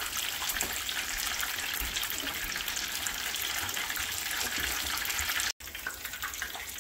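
Egg rolls deep-frying in a skillet of hot oil: a steady sizzle with fine crackling. It cuts out suddenly about five and a half seconds in and picks up again a little quieter.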